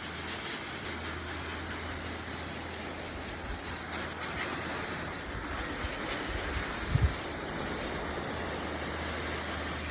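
Steady hiss of water spraying onto a car's bodywork over a low, steady hum, with a single low thump about seven seconds in.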